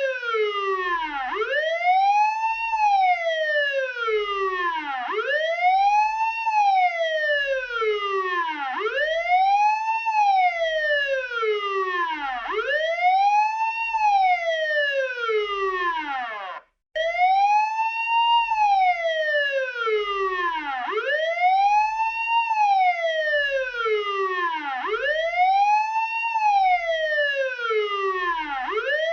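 Police car siren wailing. Its pitch climbs over about a second and a half, then falls more slowly, and the cycle repeats roughly every four seconds. The sound cuts out for a moment a little past halfway through.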